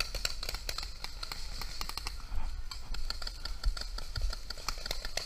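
Paintball fire: rapid, irregular sharp pops and cracks from paintball markers shooting, several a second, some louder than others.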